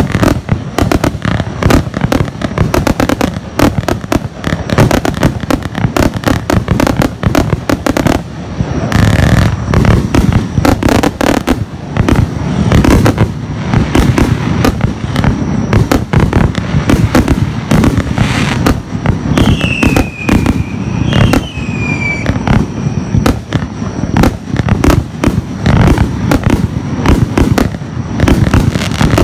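A 200-shot compound firework cake (Pyro Group Europe Italian Power 1) firing continuously: a dense, rapid string of shots and bursts, one after another with hardly a gap.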